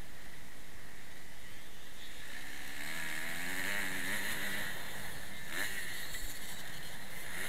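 Dirt bike engines revving on a motocross track, heard through steady wind rush on a helmet-mounted camera's microphone. The engine pitch rises and falls from about two to five seconds in, and there is a short knock near six seconds.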